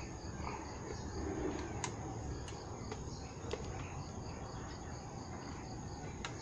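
Insects chirping in a steady, even high pulse over a faint high whine, with low background rumble and a few faint clicks.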